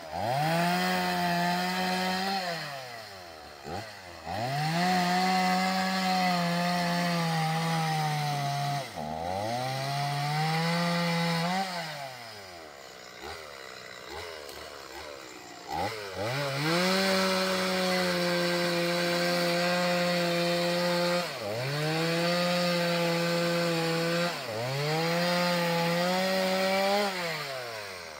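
Chainsaw revved to full throttle in about six long bursts while cutting through a fallen tree. Its pitch holds high and sags slightly under the load of each cut, then falls back toward idle between cuts.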